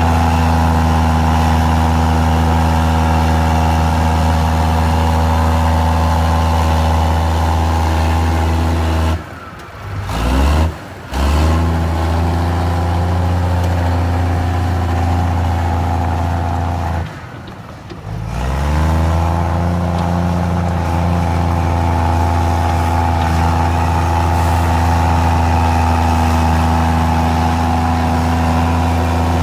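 Komatsu D53E bulldozer's diesel engine running hard under load. The revs drop briefly twice, about a third of the way in and again past the middle, then climb back up.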